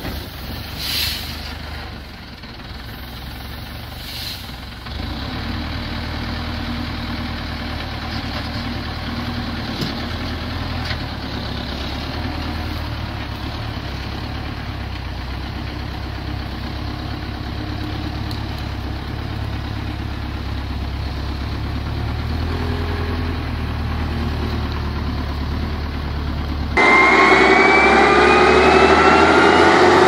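Loaded six-wheel logging truck's engine running steadily, a low hum, with a couple of knocks in the first few seconds. About three seconds before the end it gives way to a much louder CBI ChipMax wood chipper running, its whines rising in pitch.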